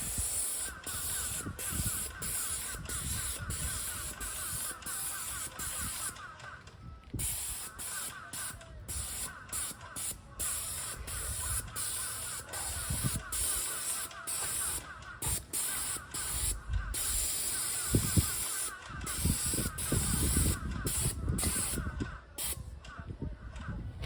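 A paint spray gun hissing steadily as it coats a garage door, with a few short breaks where the trigger is let go. Low knocks of handling come in the second half.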